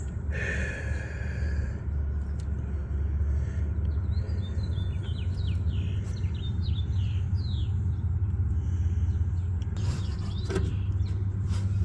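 A steady low motor rumble, like an engine running, with a brief higher-pitched noise at the start and a few quick high chirps in the middle.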